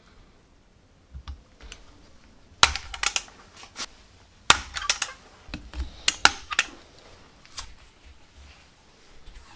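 Hand pop-rivet tool being squeezed on a rivet set through a metal hammer handle: a run of sharp metallic clicks and snaps, loudest about two and a half and four and a half seconds in, with a last click near the end.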